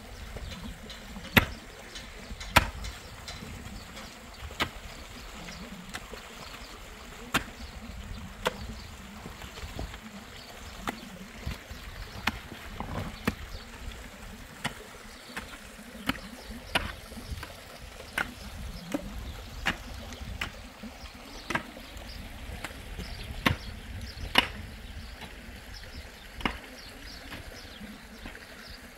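A long-handled digging tool striking stony soil, and rocks being knocked as they are shifted: sharp, irregular knocks about one a second. Steady rushing river water runs underneath.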